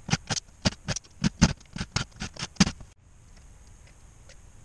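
A quick, irregular run of sharp clicks and knocks, about four a second, from hand work on a black window frame on a workbench; it stops abruptly about three seconds in, leaving only faint ticks.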